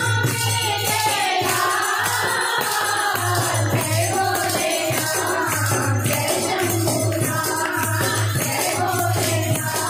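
Women's group singing a Hindu devotional bhajan to Shiva, led on a microphone, with jingling hand percussion and a low drum beat keeping a steady rhythm.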